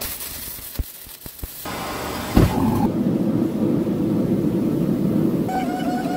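Arc welding crackling and hissing as a stack of steel bandsaw blades is welded together, with a few sharp clicks; then a loud knock about two and a half seconds in, followed by a steady low roar, with a repeating high chirping tone coming in near the end.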